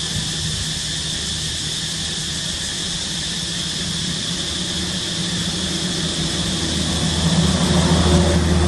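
Low, steady engine hum with an even high-pitched hiss over it; the hum swells louder near the end.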